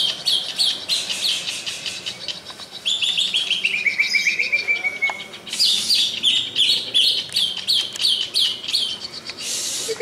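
Green leafbirds (cucak ijo) singing: fast runs of sharp, repeated high chirps, with a long run of notes sliding down in pitch about three seconds in. A short rushing hiss comes near the end.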